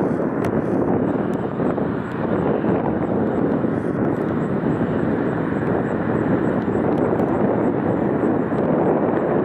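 Boeing 767 freighter's GE CF6 turbofan engines running at taxi power, heard as a steady rush of jet noise.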